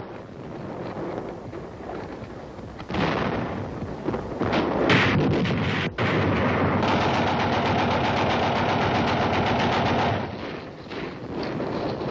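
Gunfire on a battle soundtrack: rapid machine-gun fire and shots, with the loudest blast about five seconds in.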